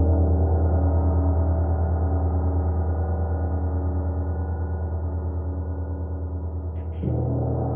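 A large gong ringing out in many overlapping low tones with a steady pulsing waver, slowly fading, then struck again about seven seconds in.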